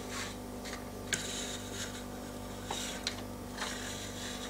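Light handling sounds of a plastic model kit being turned by hand on its stand: a few sharp plastic clicks and ticks, one about a second in and a cluster around three seconds, over a steady low electrical hum.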